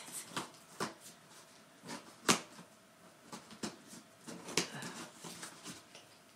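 Cardboard box being cut open with a small cutter: irregular scratches, taps and clicks on the cardboard and packing tape, the sharpest about two seconds in.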